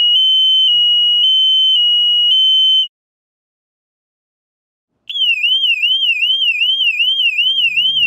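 Floyd Bell Twin Turbo panel-mount piezoelectric alarm sounding its warble tone: a loud, high tone stepping back and forth between two close pitches for about three seconds before it cuts off. About two seconds later the siren-tone version starts, a high tone sweeping up and down about two and a half times a second.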